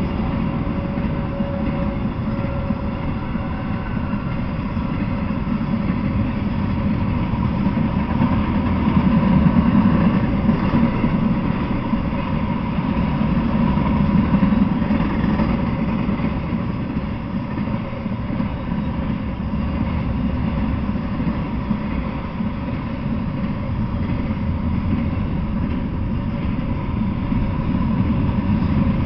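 Intermodal freight train rolling past, its wheels running over the rails in a steady rumble, rising and falling slightly as the cars go by.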